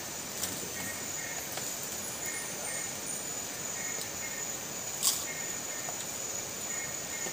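Insects chirping: a steady high-pitched insect tone with short chirps repeating about every half second. A single sharp click sounds about five seconds in.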